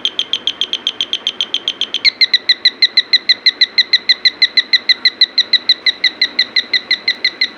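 Electronic bird-sound generator circuit chirping in a fast, even series of about six chirps a second. About two seconds in it switches to a different, louder chirp pattern with a lower and a higher note.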